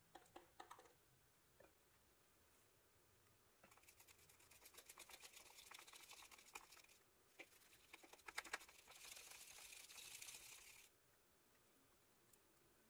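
A toothbrush scrubbing a wet, soapy toy truck wheel in quick back-and-forth strokes, in two spells of a few seconds each. There are a few light clicks at the start as small parts are handled over the soapy water.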